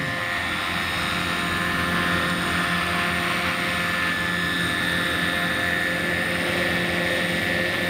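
Electric-powered large-scale model Bell 429 helicopter hovering just above the ground: its rotor whir and motor make a steady sound with a constant high whine.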